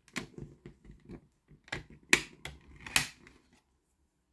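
A DVD being pried off the centre hub of a clear plastic disc tray. A few sharp plastic clicks and snaps, the loudest about two seconds in and another about a second later, as the disc comes free.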